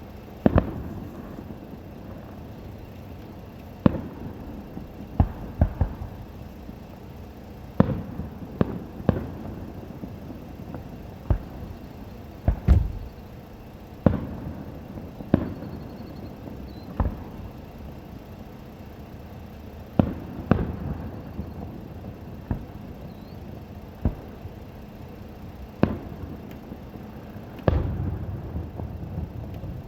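Fireworks shells bursting overhead: sharp booms, one every one to three seconds, each with a short echoing tail, over a steady low background noise.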